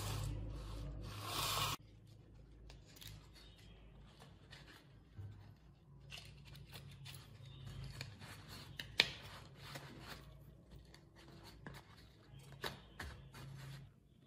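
Hand work on a workbench: a loud hissing burst for under two seconds, then scattered scraping, rubbing and light clicks.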